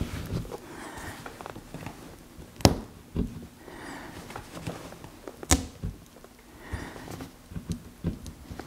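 Hands working a windshield glass loose from its stuck old rubber gasket: soft rubbing and scraping with a few light knocks, and two sharp clicks about three seconds apart.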